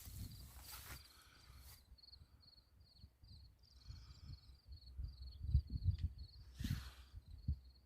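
A cricket chirping steadily in a high, even rhythm, about three chirps a second, over a low irregular rumble and a little rustling.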